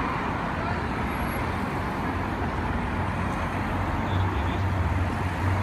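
Race convoy vans, among them a Volkswagen Transporter team van, driving past along the street with a steady rush of engine and tyre noise; a low engine hum grows louder about two-thirds of the way through.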